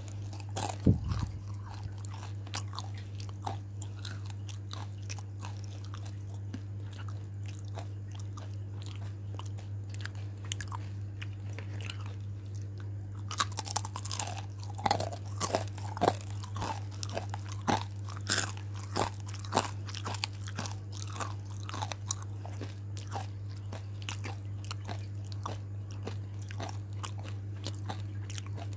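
Close-up crunchy chewing of crispy battered fried food: sharp, crackling bites and chews, loudest and densest about halfway through, over a steady low hum.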